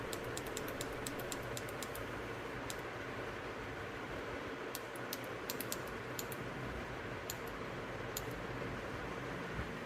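Small tactile push buttons on an Arduino control board clicking as they are pressed to set the heater's temperature. A quick run of presses comes in the first two seconds, then scattered single presses and short clusters, over a steady background hiss.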